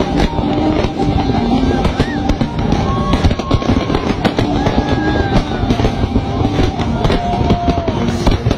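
Fireworks display: a dense, continuous run of bangs and crackles, with music playing alongside.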